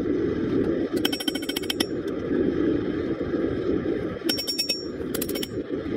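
Gas forge burner running with a steady roar, broken three times by quick runs of ringing metal-on-metal taps: about a second in and twice more after four seconds.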